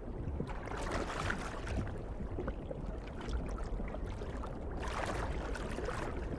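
Underwater ambience: a steady, muffled rush of moving water with a low rumble, swelling slightly about a second in and again near five seconds.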